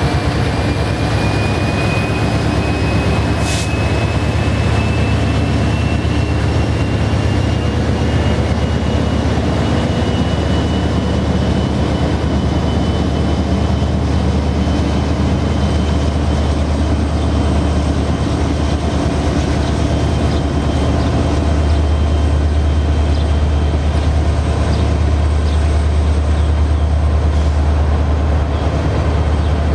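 Norfolk Southern freight train of autorack cars rolling past close by just behind its diesel locomotives: a steady, heavy low rumble of engines and wheels on rail. A thin high whine slowly rises in pitch over the first dozen seconds, and there is one sharp click about three and a half seconds in.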